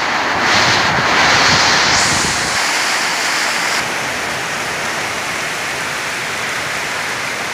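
Heavy rain pouring in a windstorm, a loud, steady rush of rain and wind. It swells about half a second in and eases a little a few seconds later.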